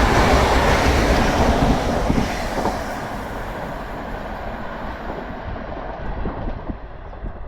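Train led by Class 43 power car 43238 passing over the rails and moving away, its rumble loud at first and fading steadily from about two seconds in.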